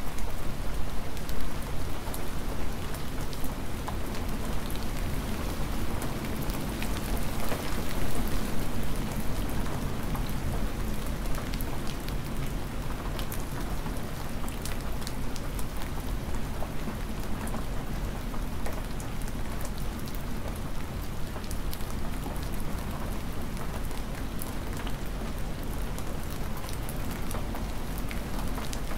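Hard, cold spring rain falling steadily: an even hiss with many sharp ticks of drops striking close by.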